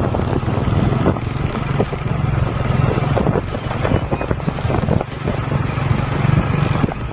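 A vehicle's engine running steadily while riding along, with a noisy rush over it.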